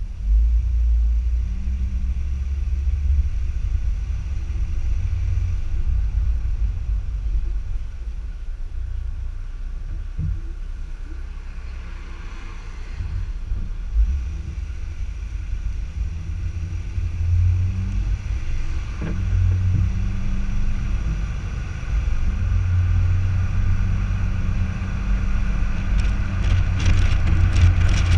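A car driving, heard through a camera mounted outside on its body beside the front wheel: a steady low rumble of road and wind noise. It eases off in the middle as the car slows to pull onto the road, then builds again as the car picks up speed.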